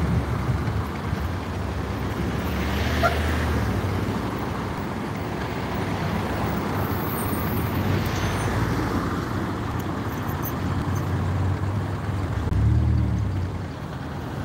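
Road traffic passing on a street: a steady low rumble of engines and tyres, swelling as vehicles go by near the start and again near the end.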